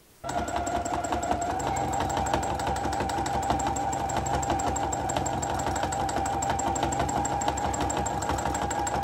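Brother domestic sewing machine running at high speed while free-motion stitching with a hopping foot. It starts suddenly just after the beginning, then runs steadily with a motor whine over rapid, even needle strokes.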